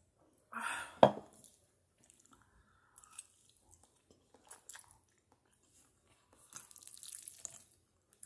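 Mouth sounds of someone eating spaghetti: a sharp knock about a second in, then soft wet chewing and slurping with small clicks, and a denser burst of slurping and chewing near the end.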